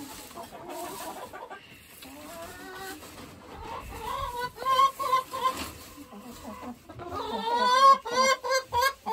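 Chickens clucking and calling, with a quick, louder run of calls near the end.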